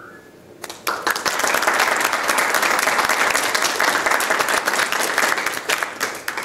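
Audience applauding, starting a little under a second in and dying away near the end.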